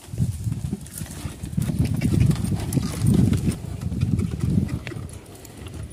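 A donkey pulling a heavily loaded cart over a dirt and sand track: uneven hoofbeats mixed with the low rumble of the cart's wheels.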